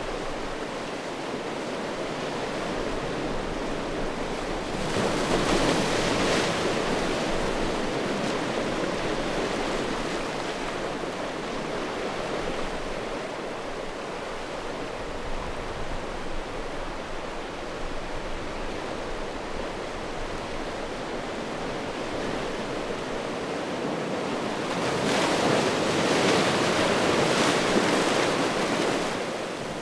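Sea waves washing in on a shore of rounded stones, a steady surf with two louder surges, one about five seconds in and one near the end.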